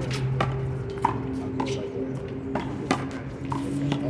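Rubber handball being slapped by hand and smacking off a concrete wall during a one-wall handball rally: about six sharp smacks, roughly every half second, with a pause in the middle, over a steady low hum.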